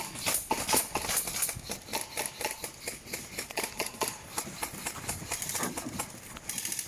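A run of irregular sharp clicks and crackles, several a second.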